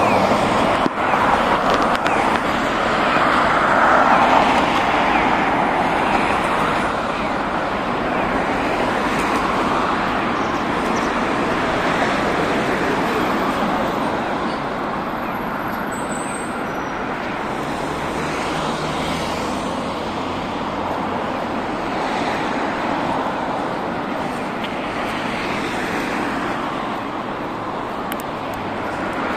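Road traffic on a wide multi-lane road: cars passing with steady tyre and engine noise, loudest about four seconds in.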